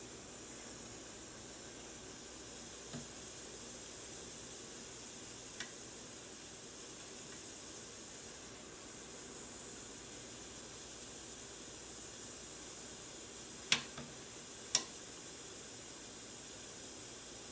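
Butane gas soldering iron hissing steadily while its tip heats solder on a circuit-board pad. Two sharp clicks a second apart come late on.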